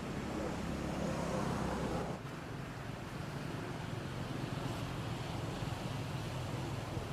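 Steady background rumble and hiss with no distinct events. It is louder for about the first two seconds, then drops suddenly and holds steady.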